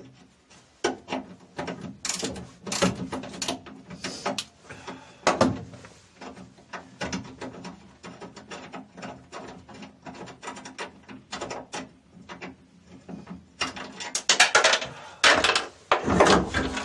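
A long-handled ratchet wrench clicking in quick strokes as a nut is tightened. The strokes come in irregular bursts, loudest near the end.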